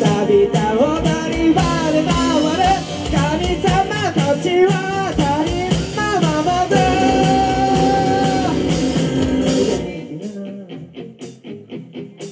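Live rock band playing with a male singer: vocals over electric guitar, keyboard, bass and drums. About ten seconds in the low end drops out and the band falls away to a quieter, sparser passage.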